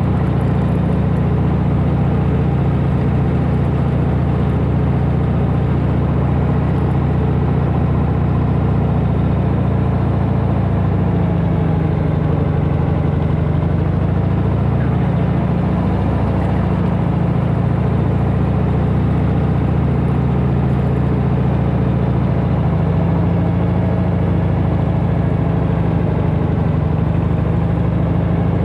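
1992 Harley-Davidson Heritage Softail Classic's 1340 cc Evolution V-twin running steadily under way, its pitch shifting only slightly with small throttle changes.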